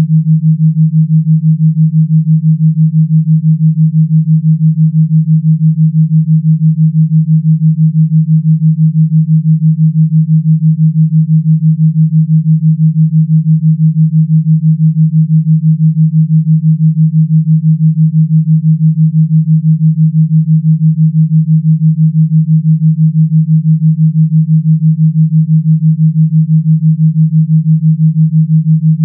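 A single steady, low electronic pure tone, pulsing rapidly and evenly in loudness: a synthesized gamma-wave tone track.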